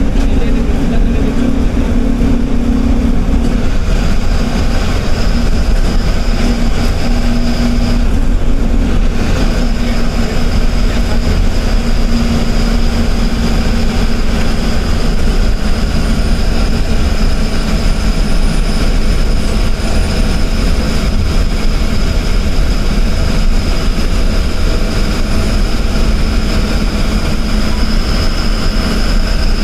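Engine and road noise of a state-transport bus heard from inside the driver's cabin while cruising on the highway: a loud, steady drone with a thin high whine over it.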